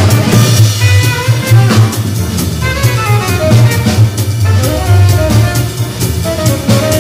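Live small-group jazz: a Ludwig drum kit keeps time with cymbals over a walking-style bass line, while another instrument plays short runs of notes.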